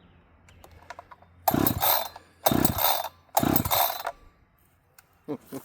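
Echo CS-590 chainsaw's recoil starter rope pulled hard three times in quick succession, the two-stroke engine turning over without catching. The choke is out and the engine is flooding, by the owner's account.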